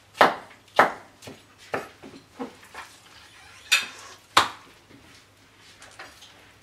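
A knife and a raw wild boar leg knocking and clattering on a wooden cutting board while the leg is cut through at the knee joint and turned over. The sharp knocks come irregularly, loudest near the start and a little past the middle, and fade to faint ticks near the end.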